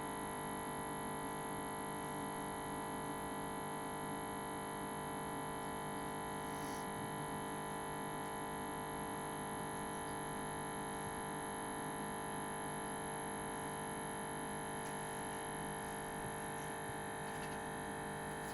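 Keurig coffee maker's pump humming steadily with a buzzy tone as it pushes the last drops of the brew through.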